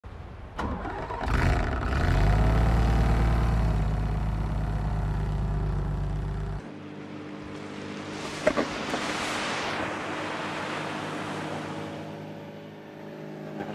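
Single-engine light propeller plane's engine running, loud and close with a heavy low rumble. About six and a half seconds in it changes abruptly to a more distant, steady engine drone over outdoor noise.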